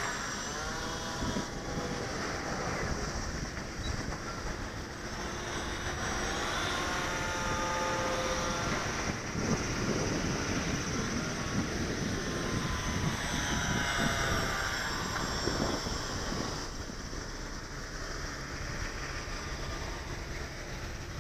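Twin electric motors and propellers of a Durafly Cessna 310 RC model plane whining in flight, the pitch gliding up and down as the plane moves across the sky.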